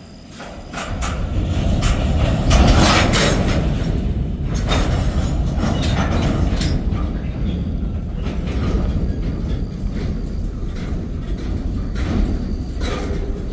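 Freight train's covered hopper cars rolling slowly past: a low rumble of wheels on rail with many clanks and knocks from the wheels and couplers. It swells up sharply about a second in.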